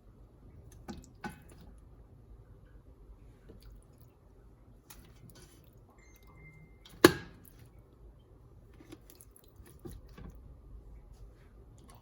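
Kitchen handling sounds at a metal steamer: a few light clicks and taps, then one loud metallic clank with a short ring about seven seconds in.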